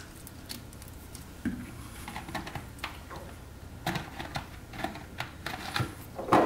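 Irregular small clicks and knocks of plastic bottles being handled and set down on a stone countertop, with a louder knock near the end.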